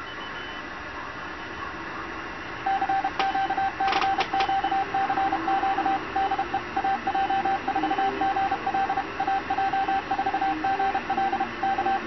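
Morse code CW sent as a single steady-pitched tone keyed on and off in dots and dashes, the transceiver's CW sidetone keyed automatically by an Arduino Nano straight keyer. It starts about two and a half seconds in, with a few sharp clicks in the first seconds of sending.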